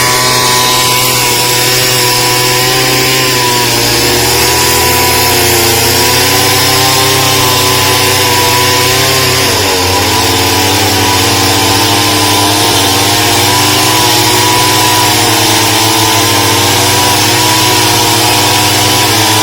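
Chainsaw engine running hard and steadily, its pitch sagging briefly about four seconds in and again around ten seconds in, as it does under load while cutting.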